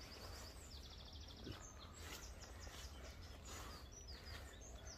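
Faint songbird calls: scattered high chirps, a fast trill about a second in, and short falling whistles near the end. A low steady rumble runs underneath.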